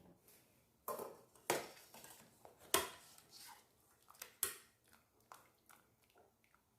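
Kitchen utensils knocking and clinking during food preparation: a few sharp knocks at irregular intervals of about a second, the loudest in the first half, followed by lighter taps.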